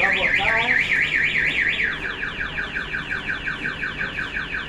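Garbage truck's electronic reverse siren wailing in fast repeated rising sweeps, about six or seven a second; about two seconds in it turns fainter and changes its sweep.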